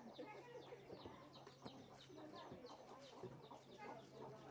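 Faint chickens calling: many short, falling peeps and clucks, several a second. A few light knocks come through as plastic jars are set down on a wooden shelf.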